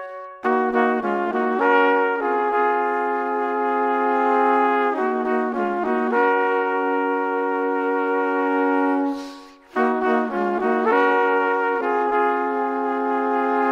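Background music: a brass melody, trumpet-like, alternating quick runs of notes with long held notes, with a brief break about nine seconds in.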